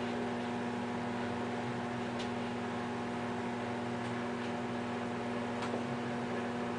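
Steady electrical hum with hiss, with a few faint clicks.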